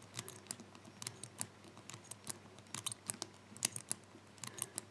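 Faint, irregular clicks from the number wheels of a Master Lock combination padlock being turned one notch at a time. The shackle is under tension while each position is tried, feeling for the loose number that marks the binding wheel's true gate.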